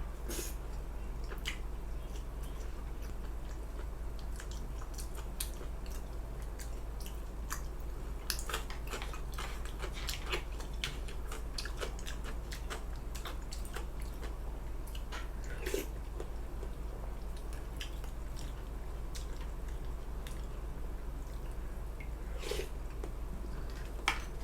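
Close-up eating sounds: chewing and biting, with scattered small clicks and crackles throughout, over a steady low hum.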